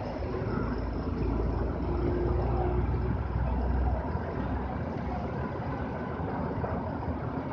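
Street traffic going by: a low, steady rumble of passing cars that builds about a second in and eases back about four seconds in.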